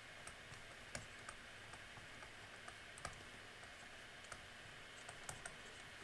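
Faint, irregular ticks and taps of a stylus writing on a tablet screen, over a steady low hiss.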